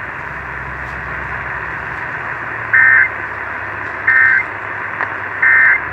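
Three short bursts of Emergency Alert System data tones, about 1.3 seconds apart, the end-of-message code that closes the alert, heard over steady AM radio hiss.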